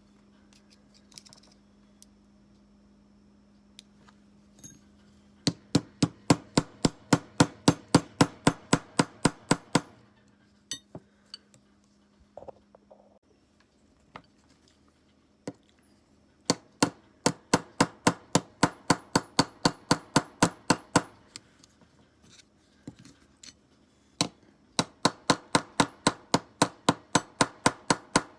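Small hammer tapping rapidly on metal in three runs of about five strikes a second, with single taps between, as in peening the rivets of a folding knife's handle. A steady low hum runs under the first half.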